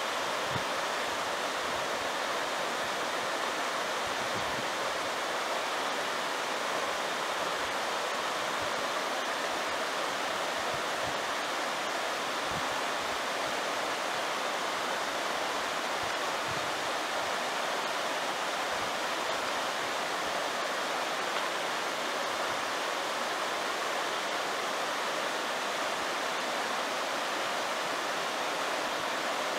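A shallow mountain stream running over a small rocky cascade: a steady, even rush of water.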